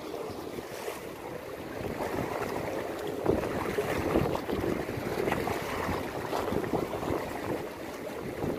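Wind buffeting the microphone over the wash of sea waves against a concrete-block breakwater, a steady, fluctuating noise.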